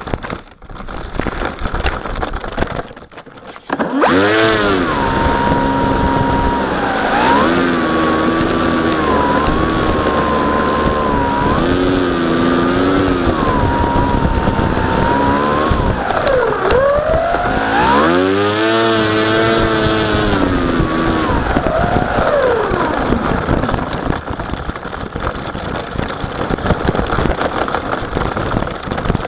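Brushless outrunner electric motor (NTM 4248, 650 kV) spinning an 11×8 propeller on an RC model plane: a steady whine that comes up a few seconds in, then sags and climbs back with the throttle twice in the second half.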